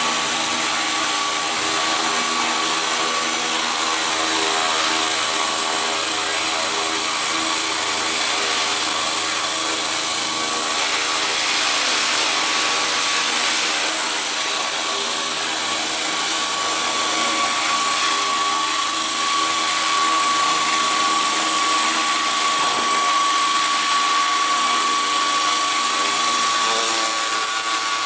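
Electric 700-size Blue Thunder scale RC helicopter in flight: the electric motor and rotors whine steadily, with a constant high tone over a lower whir. The tone grows stronger in the second half, and the loudness dips briefly near the end.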